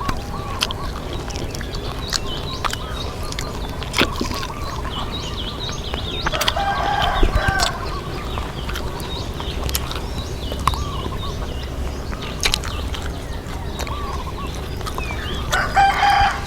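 Two bouts of short, pitched animal calls, about six seconds in and near the end, among scattered sharp clicks and a steady low hum.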